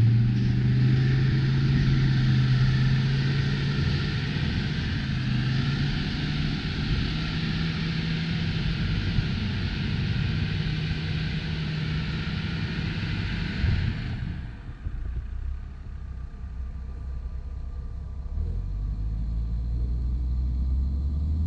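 Off-road 4x4's engine running at steady, raised revs as it pushes through snow and mud, with a strong hiss over it. About two-thirds of the way through the hiss cuts off and the engine falls to a lower note, then picks up again near the end.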